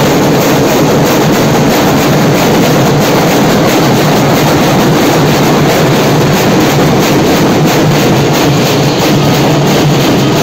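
A large troupe beating many stick-played barrel drums together: a loud, dense wall of rapid drumming that runs on without a break.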